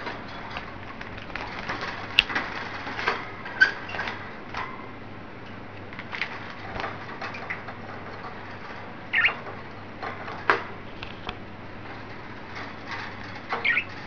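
Pet budgerigars chirping and chattering in short, scattered calls, with a few sharp clicks and taps among them.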